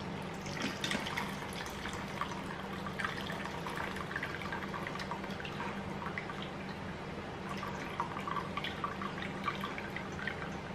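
Meat grease dripping and trickling from a tipped meatloaf pan into a small cup, in small irregular drips over a steady low hum.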